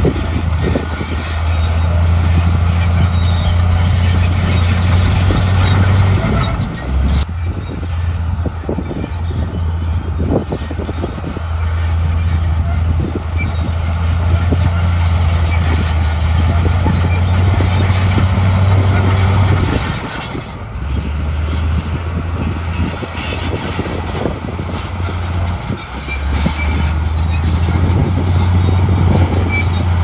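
Komatsu D58E crawler bulldozer's diesel engine running under load as the blade pushes rocky soil, its steady low drone dropping and picking up again several times. Clanks and rattles from the tracks and tumbling rocks run through it.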